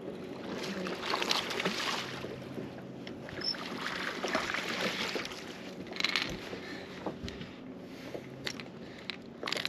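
Water splashing as a hooked bass thrashes at the surface beside a boat, with water lapping at the hull, in several surges over the first six seconds. A few short knocks follow near the end as the fish is handled.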